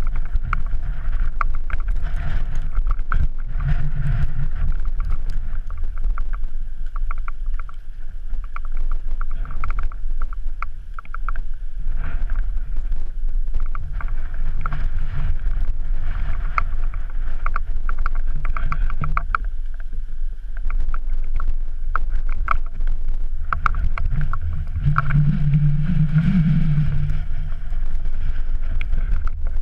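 Wind buffeting the microphone in a steady low rumble, with scattered sharp clicks and scrapes of trekking-pole tips and boots on snowy rock.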